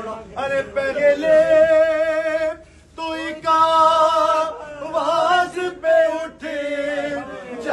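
A man's voice chanting a noha, a Shia lament for Ali Akbar, sung without instruments in long wavering held notes, with a short pause about two and a half seconds in.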